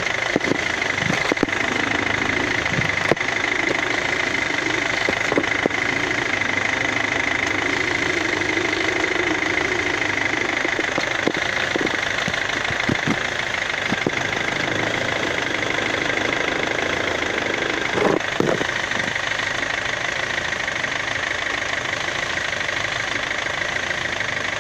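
Kia Ceed engine idling steadily, with a few short knocks and clicks scattered through, the clearest about 18 seconds in.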